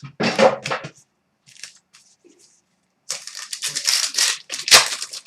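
Crinkling and tearing of a trading card pack's wrapper: a short rustle at the start, then a longer stretch of crackling from about three seconds in, loudest just before the end.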